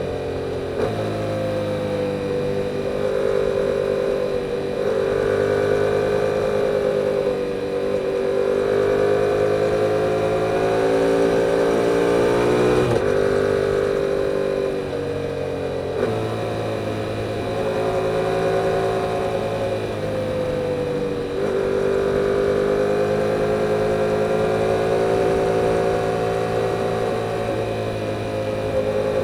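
2022 Yamaha R7's 689 cc parallel-twin engine running through its stock exhaust while riding. The engine note climbs slowly under throttle, falls away sharply about thirteen seconds in, and picks up and climbs again after about sixteen and twenty-one seconds, as with gear changes and throttle roll-offs.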